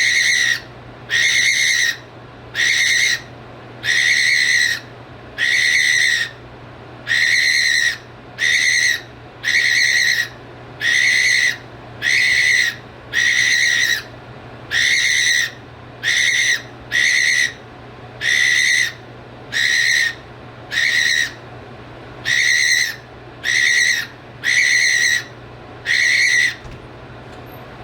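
A cockatiel calling over and over: about twenty loud, even calls, each under a second long and held at one pitch, coming roughly one every second and a half and stopping just before the end.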